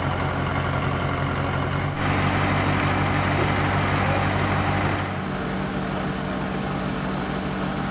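Engine of a small mobile shop crane running steadily while it holds a locomotive cab on its hook. The engine's note changes abruptly about two seconds in and again about five seconds in.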